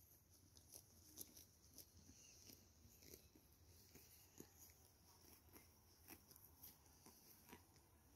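Faint grazing sounds of sheep cropping grass: soft, irregular tearing ticks a few times a second, all very quiet.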